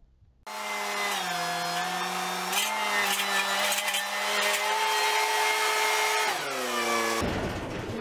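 Case skid steer engine running at high revs, its pitch steady with small shifts, then falling away about six seconds in before cutting off abruptly.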